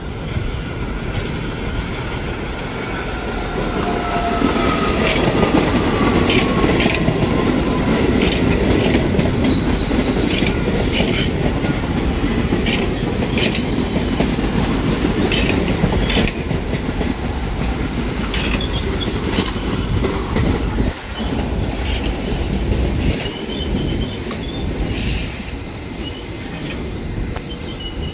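An R68 subway train passes close by: steady rumble of the cars, with wheels clicking over rail joints. A whine falls in pitch early on, and thin wheel squeals come near the end.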